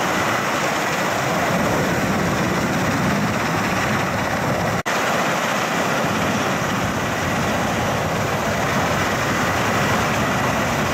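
Steady roar of aircraft turbine engines with a thin high whine running over it. The sound drops out for an instant about five seconds in.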